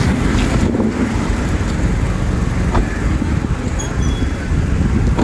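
Road traffic noise: vehicles passing on the street, a steady low rumble.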